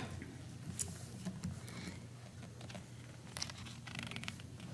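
Quiet room tone with a steady low hum and a few faint rustles and light clicks, as paper notes are handled at a wooden pulpit.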